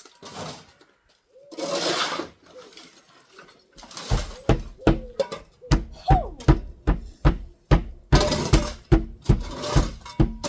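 Hand tools working a glass pane loose from an old window frame. A short scraping rush about two seconds in, then steady sharp knocking about three times a second from about four seconds on, with more scraping near the end.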